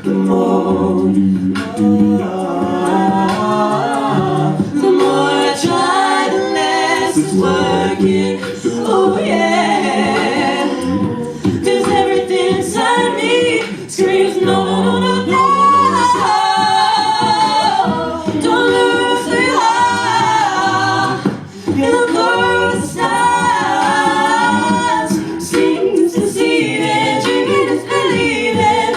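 A cappella group singing a pop song in layered vocal harmonies, with vocal percussion clicking a steady beat underneath.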